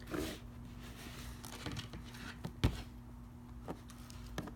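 Packaging crinkling and rustling with scattered small clicks as a box's seal is torn open, and a sharper tap about two and a half seconds in.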